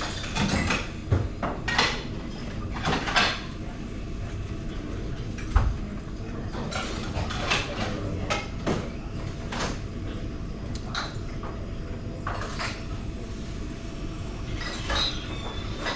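Scattered clinks and knocks, a few of them sharp and loud, over a steady background din.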